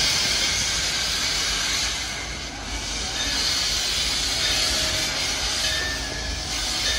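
Steady hiss of steam from a steam locomotive, the Frisco Silver Dollar Line's engine 14, briefly dropping off about two and a half seconds in before returning.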